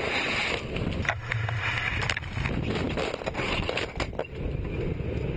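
Wind and engine noise in a C-130 Hercules cargo hold with the rear ramp open in flight, as cargo bundles are pushed out for an airdrop, with a series of sharp knocks and rattles about one to four seconds in.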